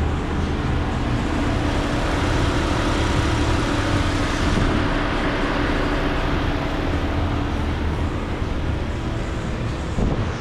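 Steady running of machinery: a low hum with a steady mid-pitched tone over a broad rushing noise, and a short knock near the end.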